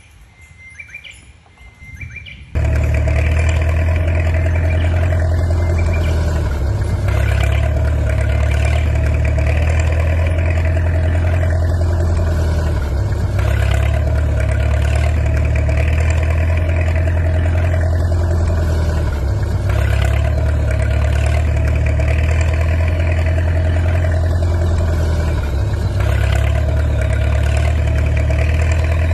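Birds chirping, then about two and a half seconds in a loud engine sound cuts in abruptly and runs steadily. It is a looped recording of an engine running, repeating its pattern about every six and a half seconds.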